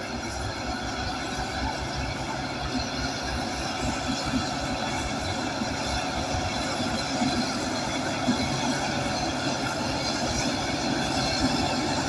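Bulldozer at work: its diesel engine runs steadily under load, mixed with the rumble and rattle of its steel tracks. The sound swells a little as it goes.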